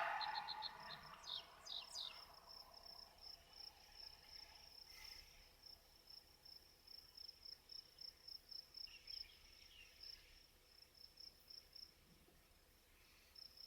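Insects chirping faintly and steadily, a high pulsed call repeating several times a second, typical of crickets. A whooshing noise fades away over the first two seconds.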